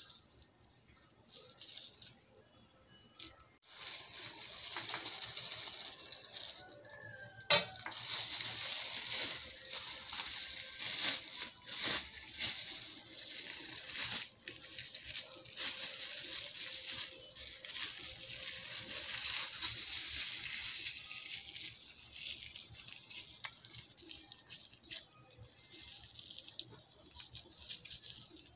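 Thin plastic bag crinkling and rustling as hands fill it with hot agidi and twist it closed, with scattered small clicks and one sharp knock about a quarter of the way in.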